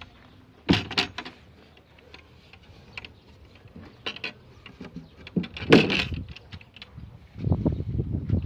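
Wooden double doors of a ger being swung and pushed shut by hand: a series of wooden knocks and clacks. The loudest knock comes about six seconds in, and a spell of duller thumps follows near the end.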